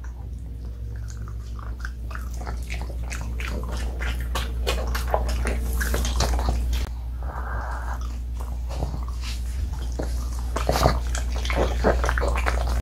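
A pug chewing and smacking on a homemade dog cookie, a run of quick wet mouth clicks over a steady low hum. The pug is eating greedily, gulping it down with little chewing.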